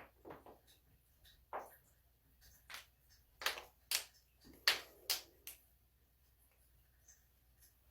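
Joints cracking during a chiropractic adjustment: a run of about eight short, sharp pops over some five seconds, the loudest a little past the middle.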